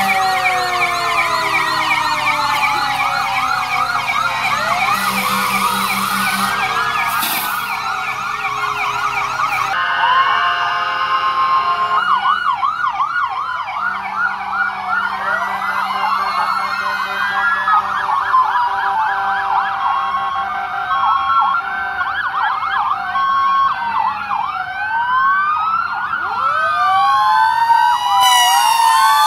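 Several emergency sirens sounding at once from parading fire trucks: fast yelping sweeps and slower rising-and-falling wails overlap throughout, with a few steady held tones mixed in.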